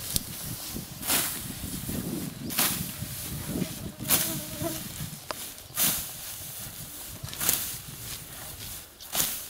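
Hand scythe swishing through tall grass and weeds, six strokes about one every second and a half, with the rustle of falling stalks between them.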